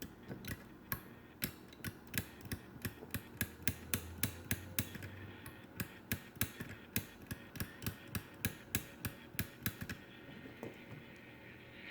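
Small switch in a transistor radio's headphone jack clicking repeatedly, about three clicks a second, as it is worked back and forth to spread freshly sprayed contact cleaner over its contacts, which were making an intermittent connection.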